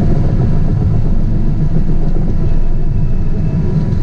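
CAT 973C track loader's diesel engine running as the machine travels, heard from inside the cab: a loud, steady low rumble.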